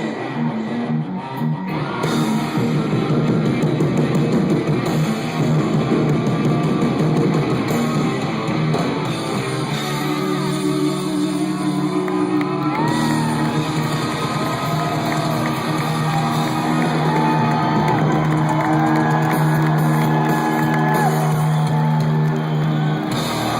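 Live rock band playing loud in a large hall, with electric guitar to the fore. From about ten seconds in the band holds long chords while lead guitar notes bend above them.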